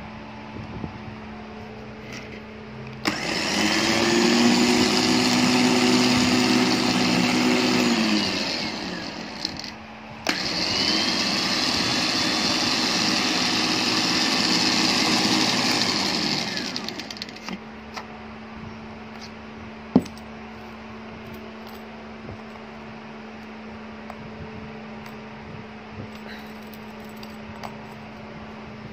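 Hi-Winch 9500 lb electric winch motor run twice from its remote with no load on the cable: each run starts abruptly with a click, whines steadily for about five seconds, then falls in pitch as the motor spins down. A sharp click comes a few seconds after the second run.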